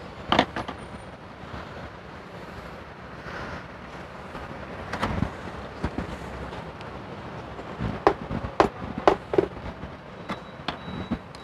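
Scattered clicks and knocks of a screwdriver and hands working plastic and rubber intake parts at a car engine's throttle body, as the intake is taken apart, with a cluster of several sharp clicks about eight to nine and a half seconds in.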